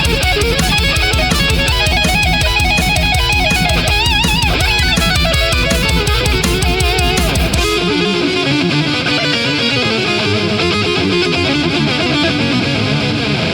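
Instrumental break of a heavy rock song: electric guitar over a pounding beat and bass. About eight seconds in, the drums and bass drop out and the guitar carries on alone.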